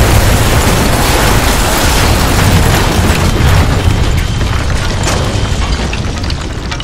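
Earthquake rumble and building collapse: a loud, deep rumble under dense crashing and crumbling of falling masonry, easing off over the last couple of seconds.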